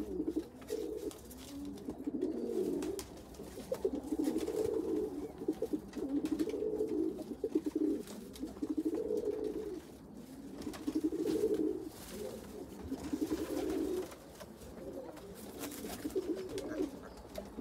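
Male domestic pigeon cooing to a new hen in a loft, repeated low coos in phrases of a second or two, typical of a cock driving his hen toward nesting.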